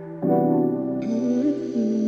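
Background music: held chords with a new chord coming in about a quarter second in, and a slow melody line entering about a second in.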